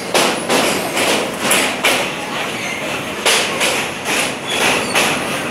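Train running across a riveted steel truss bridge, heard from an open carriage window: a loud steady clatter and rumble broken by irregular thuds.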